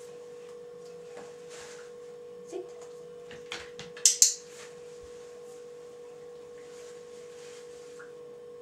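A dog-training clicker clicking twice in quick succession about four seconds in, marking the dog's sit, over a steady electrical hum. A few faint taps come before it.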